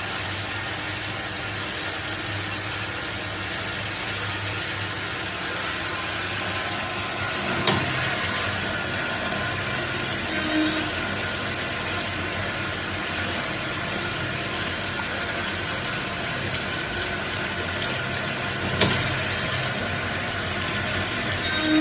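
Cam-type automatic lathe running, a steady mechanical hum and hiss. A sharp clack comes about every eleven seconds, each followed about three seconds later by a shorter, softer sound, the pattern repeating like a machine cycle.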